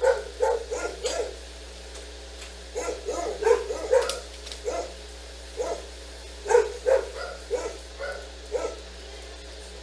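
A dog barking in short runs of quick, sharp barks with pauses between them, stopping about nine seconds in, over a steady low hum.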